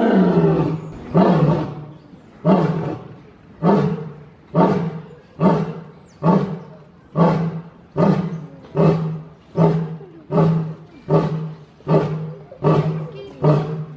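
Male lion roaring: one long roar, then a run of short grunting roars. The grunts come a little over a second apart at first and quicken to under a second apart, about fifteen in all.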